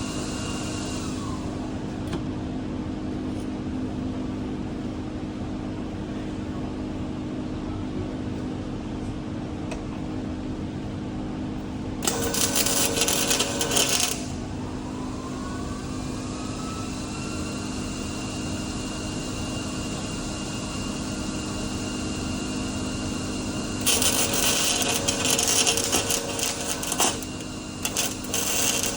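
Electric arc welding crackling in short runs of two to three seconds, one about twelve seconds in and another starting near the end. Between them a steady machine hum runs underneath.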